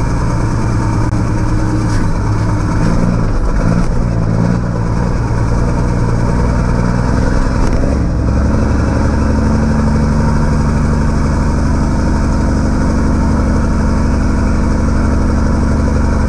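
1984 Mack R600's 237 inline-six diesel running through a 5-inch straight pipe while pulling a loaded grain trailer, heard from inside the cab. Its pitch wavers through the first half, then settles into a steady drone.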